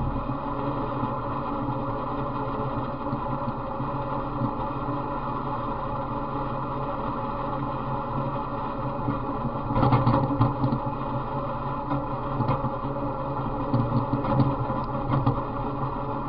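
Off-road riding mower's small engine running steadily as it drives along a rough trail, with a louder burst of rattling clatter about ten seconds in and more short knocks a few seconds later as the machine jolts over bumps.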